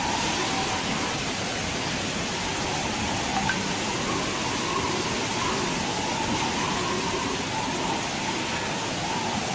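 Heavy wind-driven rain from a cyclone: a steady, even rushing noise.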